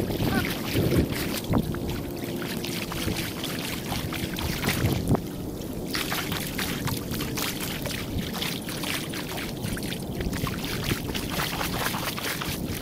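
Rain and wind on the microphone over a flooded road, a steady rushing haze with many small splashes and drop hits.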